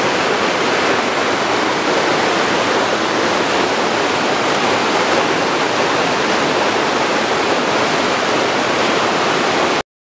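Water rushing and splashing over rocks in a cascading stream, a loud, steady rush that cuts off abruptly near the end.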